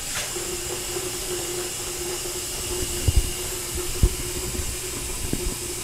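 Bathroom faucet turned on, water pouring in a steady hissing stream into the sink basin to fill it and test a newly installed pop-up drain for leaks. The hiss starts abruptly as the tap opens, with a steady hum under it and a few low thumps about three, four and five seconds in.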